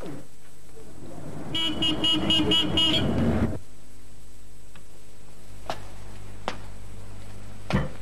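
A car passes, honking its horn in a quick run of toots. The sound cuts off abruptly about three and a half seconds in, leaving quiet room tone with a few faint clicks.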